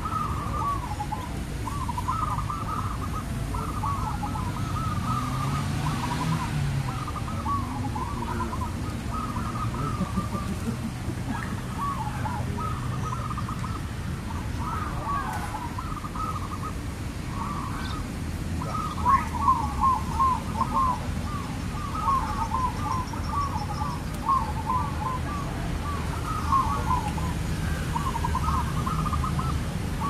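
Zebra dove (perkutut) cooing: runs of quick, soft, stuttering notes repeated again and again, loudest about two-thirds of the way through.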